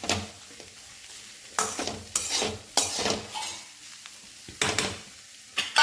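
Flat spatula scraping and stirring a dry chicken-and-coconut stir-fry in an aluminium pan: about five separate scraping strokes over a faint frying sizzle. Near the end comes a louder metallic clank with a short ring.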